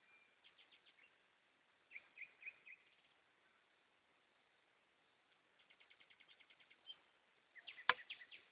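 Goldfinches calling faintly in short rapid twittering trills and chirps, in three bouts. A sharp click sounds near the end, louder than the birds.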